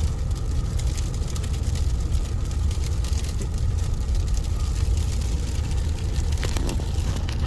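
Steady low rumble of a car driving on a snow-covered road, the engine and tyres heard from inside the cabin.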